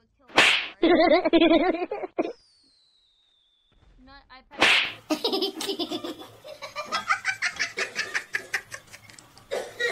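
Comedy sound effects dubbed over the clip: a sharp whoosh, a short burst of laughter, a long falling whistle, a second whoosh, then a longer run of rhythmic laughter near the end.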